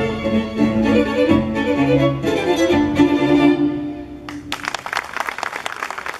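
String quartet of violins and cello playing the closing bars of a Chilean cueca, ending on a chord that dies away a little under four seconds in. Audience applause breaks out about half a second later.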